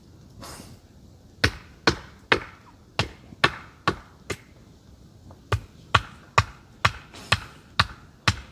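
Repeated hammer blows driving a hand-held tent stake into the ground: about fourteen sharp strikes, roughly two a second, starting about a second and a half in with a short pause midway.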